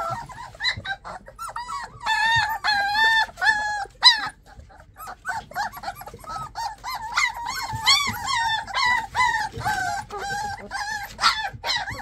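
A litter of three- to four-week-old puppies whining and yelping, many short high-pitched cries overlapping, with one sharp loud yelp about four seconds in.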